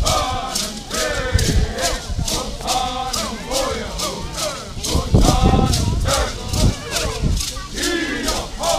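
Voices singing a traditional Cupeño song in unison over a hand rattle shaken in steady time, about three strokes a second.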